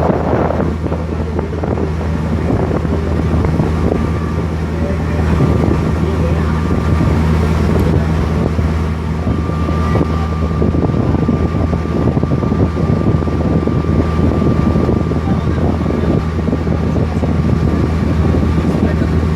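Boat engine running steadily, a low drone heard from on board, with a faint steady whine above it for most of the time.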